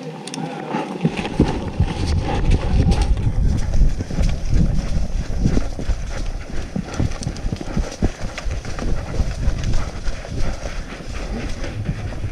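Running footsteps with gear rattling, over a heavy low rumble of wind and movement on a body-worn camera microphone.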